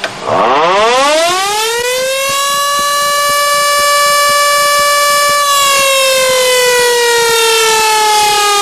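Air-raid siren winding up from a low pitch to a steady high wail within about two seconds, holding it, then slowly falling in pitch from about five and a half seconds in.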